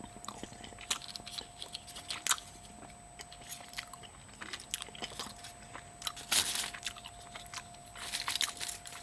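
A Kinder Surprise chocolate egg being opened by hand: scattered crinkles, cracks and clicks from the foil wrapper, the chocolate shell and the plastic toy capsule, loudest about six and a half seconds in.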